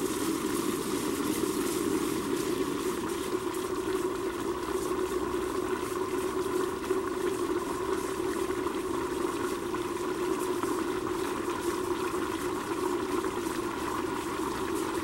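Liquid nitrogen boiling steadily around a metal Cryocup held submerged in a dewar, freezing a specimen in OCT. It makes a continuous, even bubbling hiss with a fine crackle.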